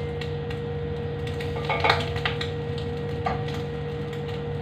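Metal utensil clinking and scraping against pots while cooked chicken is moved into a pot of rice: a cluster of clinks about two seconds in and one more a little after three seconds. A steady kitchen hum runs underneath.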